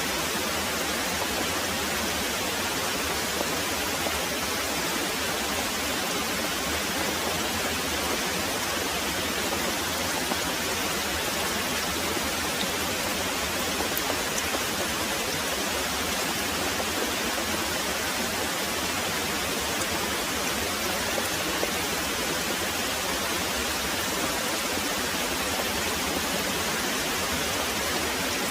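Very heavy rain pouring steadily, a dense, even hiss with no breaks.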